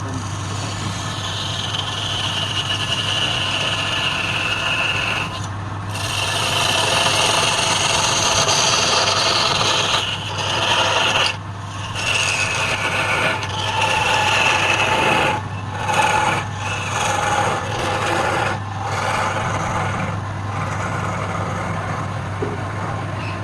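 Wood lathe running with a steady hum while a tool scrapes and rasps against the spinning wood. The scraping breaks off briefly several times as the tool is lifted and set back.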